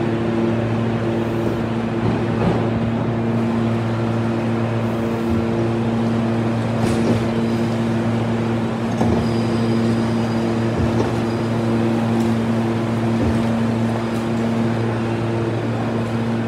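Steady electrical hum of a Meitetsu 2200 series electric train standing at the platform, an even stack of low tones from its running equipment, with light station noise and a few faint clicks over it.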